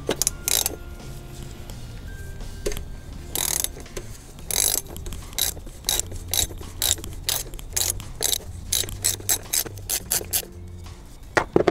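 Ratchet wrench clicking in a run of sharp clicks as it is swung back and forth on a cup-type oil filter cap tool, loosening the plastic oil filter housing cap. The clicks come faster in the second half.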